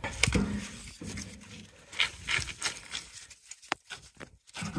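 A wooden stick knocking and poking at burning wood coals in the steel firebox of an offset smoker, breaking them up: a run of short, irregular knocks and taps, bunched together about two to four seconds in.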